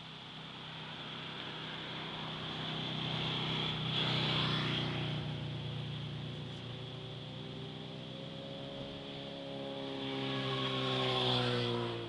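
Two vehicles passing on the road, one after the other. The first swells and fades about four seconds in. The second passes near the end, its engine note falling in pitch as it goes by.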